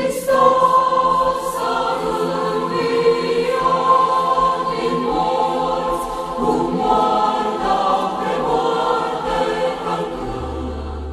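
Music: a choir singing.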